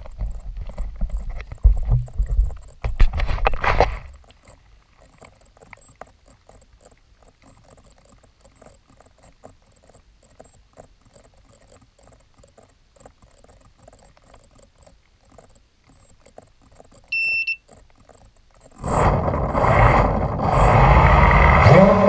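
Hexacopter drone on the ground: low rumbling knocks for the first four seconds, then a long quiet stretch broken by one short electronic beep about 17 seconds in. About 19 seconds in its six electric motors spin up loudly, and their whine rises in pitch near the end as it lifts off.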